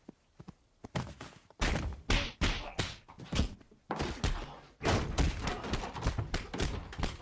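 Film fistfight sound effects: a rapid string of punches, thuds and slams, starting about a second in, with a short lull about halfway through.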